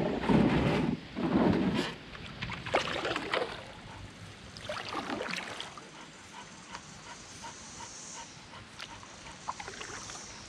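Paddling in a canoe: loud paddle strokes and knocks in the first two seconds, then quieter water around the hull with a few faint ticks, and the dog in the bow panting.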